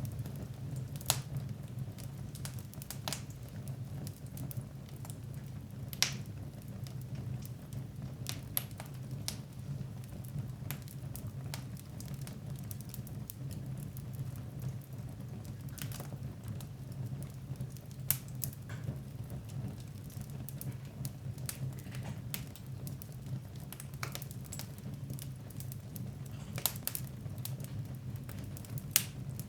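Wood fire burning in a fireplace, with a steady low rumble and irregular sharp crackles and pops every few seconds.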